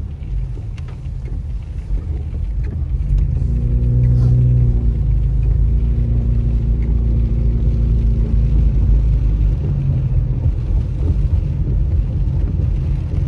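Car driving on a wet road, heard from inside the cabin: a steady low rumble of engine and tyres. The engine note rises about three and a half seconds in and holds steady until about nine seconds in.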